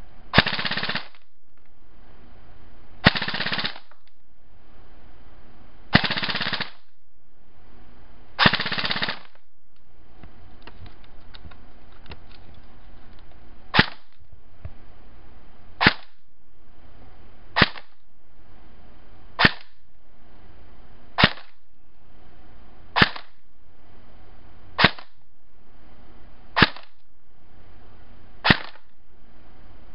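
Electric airsoft PDW (AEG) test-firing: four short full-auto bursts of under a second each, then nine single semi-auto shots about two seconds apart.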